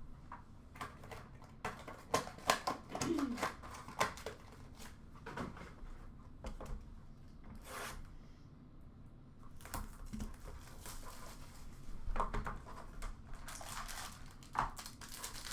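Sealed box of 2023-24 Upper Deck Engrained hockey cards being opened by hand: irregular tearing and crinkling of wrapping and packaging, with light clicks and rustles as cards are handled.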